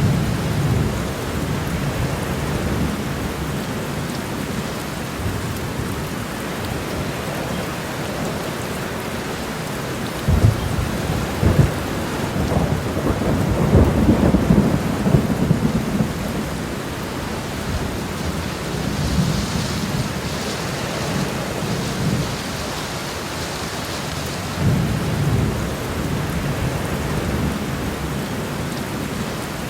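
Heavy rain pouring steadily onto a road. Deep low rumbles swell and fade through it, strongest a little before the middle, with a few sharp low jolts.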